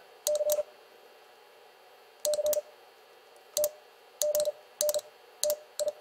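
Morse code sidetone from a ham transceiver, a steady beep near 600 Hz keyed with a paddle at 40 words per minute, each group with sharp clicks. The dits and dahs come in short scattered groups with uneven gaps, the sender repeatedly trying and failing to form the letter Y (dah-di-dah-dah) at that speed.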